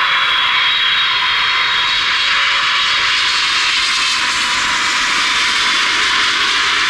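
Boeing 777-300ER's GE90 turbofan engines as the jet passes low overhead on final approach, gear down: a loud, steady jet roar with a high fan whine that fades after the first few seconds, while a lower tone sinks slightly in pitch near the end as the plane goes by.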